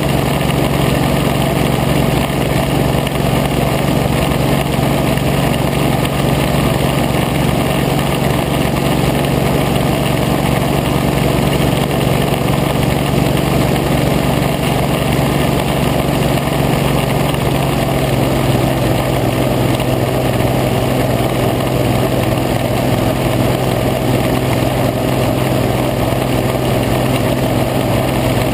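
Boat's engine running steadily under way, a constant drone that holds one pitch throughout, under an even rushing hiss.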